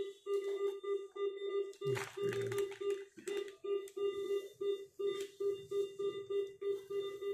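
Bedside patient monitor beeping steadily in a quick even rhythm, about three short electronic beeps a second. A few clicks and a soft knock come about two seconds in.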